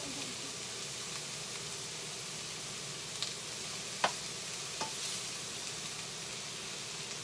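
Garlic and onions sautéing in oil in a frying pan, a steady sizzle, while a spatula stirs them. A few sharp clicks of the spatula against the pan, the loudest about four seconds in.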